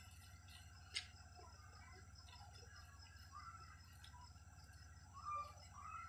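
Near silence: a steady low hum, a single click about a second in, and a few faint short chirps near the end.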